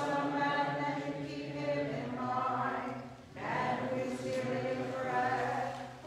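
Voices singing Byzantine liturgical chant a cappella, in two long sung phrases with a short breath break about three seconds in.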